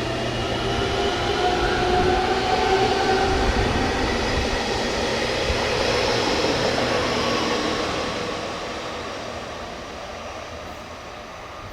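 Electric train running past at speed: rolling wheel-on-rail noise with a faint motor whine, loudest a few seconds in, then fading away near the end.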